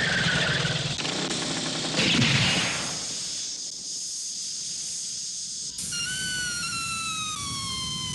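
A dynamite explosion: a loud crashing blast with a second burst about two seconds in, dying down to a quieter rumble of noise. About six seconds in, a high held note slides slowly downward.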